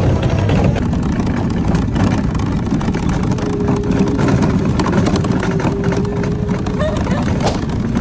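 Kiddie ride-on car rolling over brick paving: a loud, steady rumble and rattle from its wheels and plastic body, with a faint steady hum for a few seconds midway.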